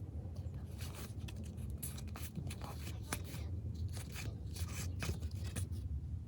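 Trading cards being handled and slid across one another, a string of short, irregular papery swishes and scrapes.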